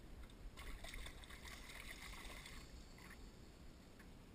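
Water splashing for about two seconds, starting about half a second in, as a hooked flathead thrashes at the surface, over a low steady rumble.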